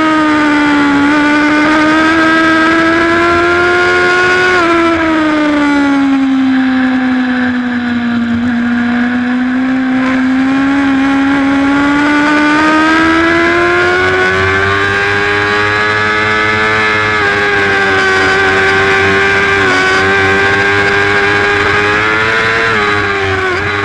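Racing motorcycle engine heard onboard, held at high revs. Its pitch sags slowly about five to nine seconds in, climbs back, and dips briefly near the end, with a steady hiss throughout.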